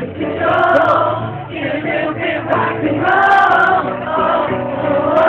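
Live pop music with several voices singing long held notes over the band's backing track.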